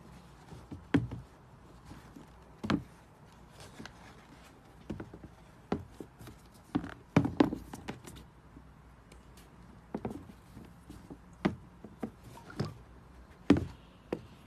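Handling noise: irregular light taps and knocks, about a dozen, with a small cluster about halfway through, as the sneakers are moved about on the shoe box.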